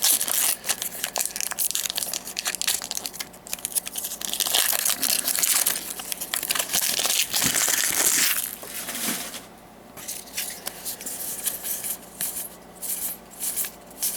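Foil booster-pack wrapper crinkling as it is torn open and handled, a dense crackle for the first eight seconds or so, then quieter, separate crackles and clicks toward the end.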